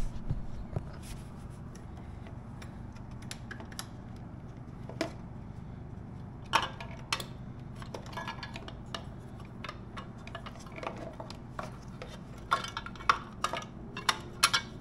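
Scattered light metallic clinks and knocks of a metal bracket being handled and fitted back onto a motorcycle frame by hand, in clusters near the middle and toward the end, over a steady low hum.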